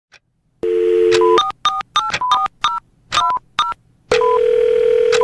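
Telephone sound effect: a steady dial tone, then a quick run of short touch-tone keypad beeps, then a steady tone again.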